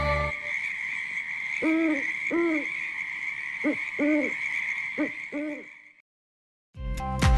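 Owl hooting six times, in three pairs of short rising-and-falling hoots, over a steady high hiss; it fades out, and music starts again near the end.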